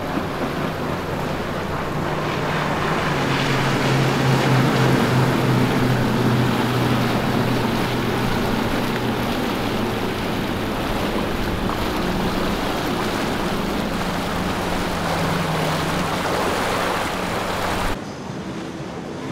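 Intrepid center-console boat with twin Mercury 400 outboard motors running at planing speed, the engines' drone under the rush of its spray, swelling to its loudest about four to six seconds in as it passes. Near the end the sound cuts abruptly to a quieter, duller wash of water from a motor yacht moving slowly.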